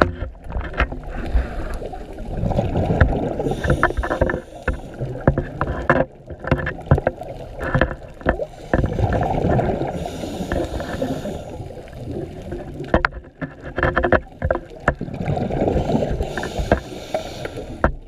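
Underwater sound of a diver breathing, with surges of bubbling and hiss about every six to seven seconds. Many sharp clicks and knocks are scattered through it.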